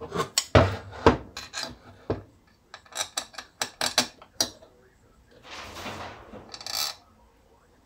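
Clicks and knocks of a chainsaw crankcase and its bolts being handled and set down on a table, a quick cluster of small clicks about halfway through, then two short rubbing scrapes near the end.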